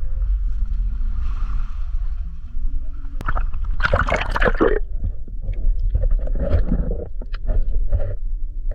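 Water sloshing and splashing around an action camera as it goes into shallow sea water, with a loud splash about four seconds in and muffled churning water after it, over a steady low rumble of wind and handling on the microphone.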